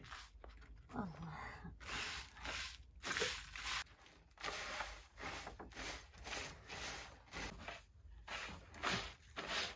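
Short handmade twig broom swept in quick strokes across a stiff mat, a brisk swish about twice a second.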